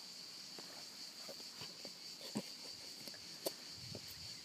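Steady high chirring of insects, with scattered creaks and knocks of wooden branches as a person climbs down from a platform of lashed branches; two sharper knocks stand out in the second half.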